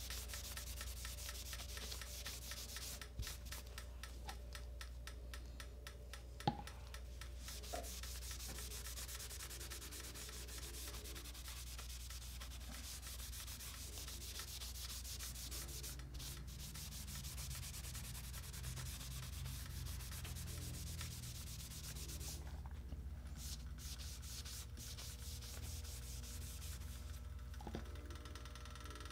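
A folded cloth rubbing an oil finish into the flat face of a sanded wood veneer panel: a soft, steady, dry-sounding rubbing with a light hum underneath. One short light knock about six and a half seconds in.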